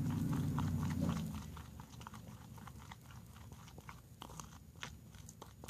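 Small irregular crackles and clicks as salt is added to and worked into homemade toothpaste-and-glue slime. A low rumble lasts for the first second or so.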